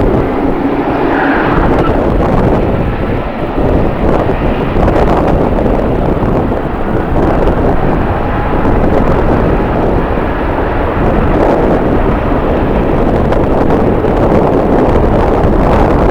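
Jet airliner engine noise mixed with strong wind buffeting the microphone: a loud, steady rush with no distinct tones.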